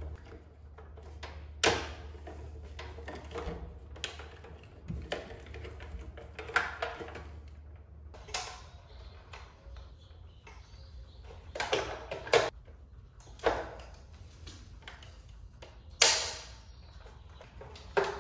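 Scattered clicks and knocks of wires, connectors and tools being handled inside a metal electrical sub panel during wiring work, over a low steady hum that stops about halfway through.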